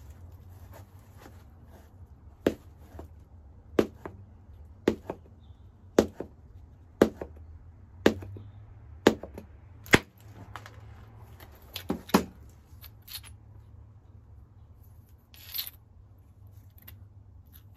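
Antler billet striking the edge of a hornstone biface in direct-percussion flintknapping: about ten sharp knocks roughly a second apart, the last two close together, then a short rustle as the piece is handled.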